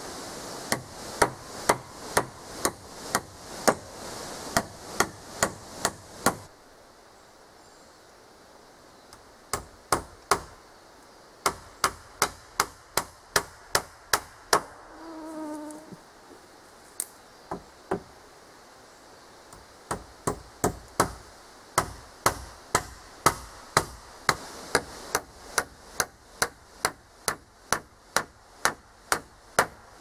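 Hammer driving nails into wooden boards: sharp, regular strikes about two a second in long runs, with a pause about six seconds in and sparser blows in the middle. A brief pitched sound is heard a little past the middle.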